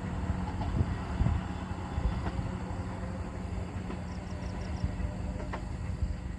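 Diesel locomotive engine running steadily with a low hum, a few faint knocks or clanks scattered through it.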